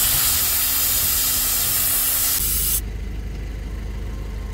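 Air hissing out of a Suzuki Jimny's tyre valve as the tyre is let down to 15 psi for off-road driving. The loud hiss cuts off suddenly nearly three seconds in, leaving a low steady rumble.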